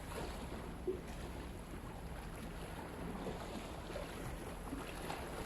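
Steady outdoor background noise, a low rumble of wind and water, with one brief faint knock about a second in.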